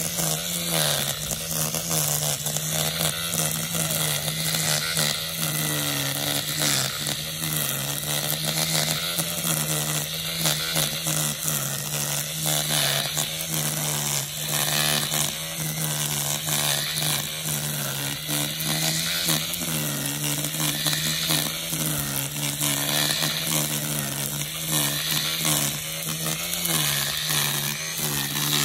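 Makita DUR190U 18V brushless cordless line trimmer running steadily, its spinning nylon line cutting grass. A steady motor whine over a whirring hiss, with a slight rise and fall in pitch every couple of seconds.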